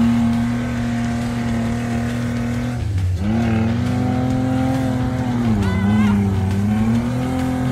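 Off-road 4x4's engine held at high revs while driving through soft sand, its pitch steady, sagging briefly about three seconds in and again near six seconds before climbing back.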